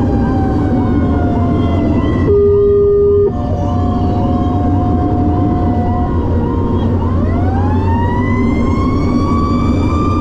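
Fire engine responding with sirens: a siren wail winds slowly down and then sweeps back up about seven seconds in, over a fast repeating electronic siren cycle. Two held horn blasts come between about two and six seconds in, all over the truck's steady engine and road drone.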